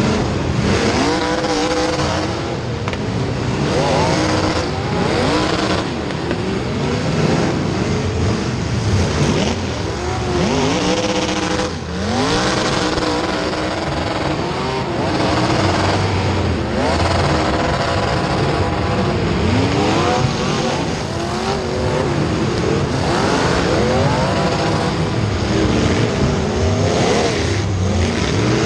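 Several race car engines running hard during a race. Their pitch keeps rising and falling as the cars accelerate and lift, with cars passing one after another over a steady mass of engine noise.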